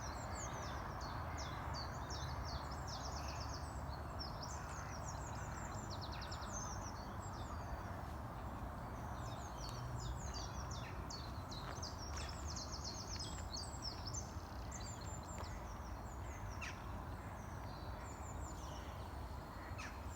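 Songbirds chirping and trilling busily throughout, many short high calls one after another, over a steady low background rush of outdoor noise.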